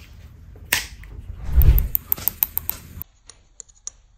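Clear plastic water-jelly container being handled and opened: a low thump, then a quick run of sharp plastic clicks. Fainter clicks follow near the end as a plastic spoon touches the jelly on its plate.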